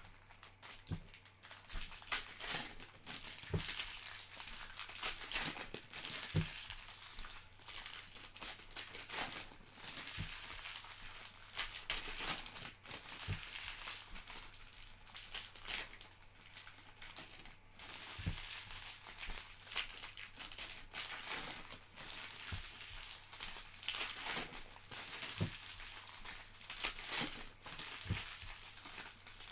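Plastic trading-card pack wrappers crinkling and tearing as packs are ripped open, with scattered sharp clicks throughout.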